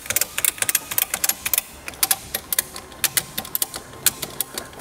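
Retractable ratchet tie-down strap being cranked: quick runs of sharp ratchet clicks with short pauses between lever strokes, as the strap is tightened to cinch a motorcycle down in a truck bed.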